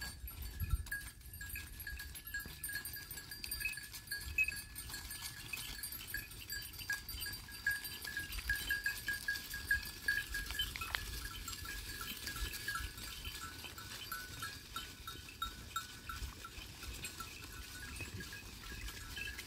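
A flock of sheep and goats on the move, their neck bells clinking steadily and continuously as the animals walk.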